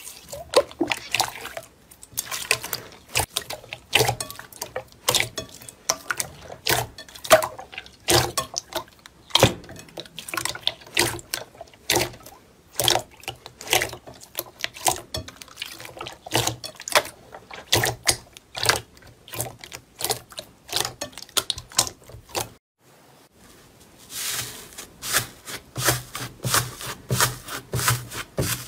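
Hands squeezing and kneading clear gold glitter slime, making irregular wet squelches and sharp popping clicks. The sound stops briefly about 22 seconds in. Then fingers pressing into a lavender slime full of air pockets give more squishing pops.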